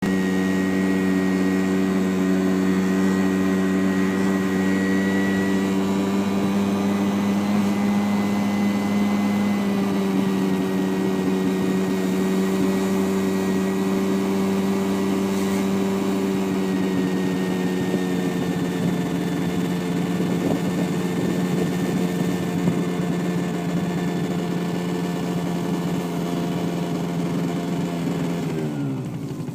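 A 49cc Yamaha Zuma scooter's small engine running at a steady cruising pitch, then dropping sharply in pitch near the end as the scooter slows.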